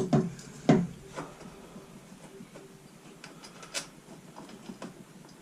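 Small clicks and knocks of parts and tools being handled during the reassembly of a backpack leaf blower, loudest in the first second, with one more sharp click near the end and faint handling noise between.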